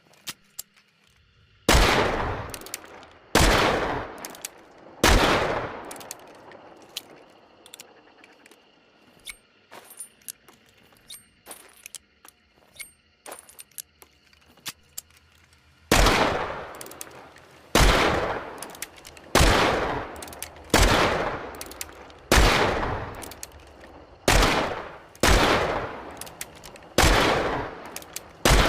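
Smith & Wesson Model 3 Schofield revolver shots: three shots a little under two seconds apart, then a stretch of light clicks and ticks, then a steady series of shots about one and a half seconds apart, each with a ringing tail.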